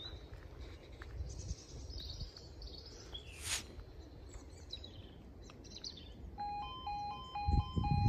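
Small birds chirping, then, a little over six seconds in, the audible alarm of a new Dorman miniature-warning-light crossing starts: an electronic two-tone warble switching between two pitches about twice a second, sounding as the light turns red for an approaching train. A few low thumps come near the end.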